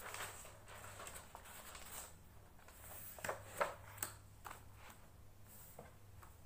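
Pages of a spiral-bound notebook being flipped and books and papers handled on a desk: a run of short paper rustles and soft taps, the sharpest few a little past the middle.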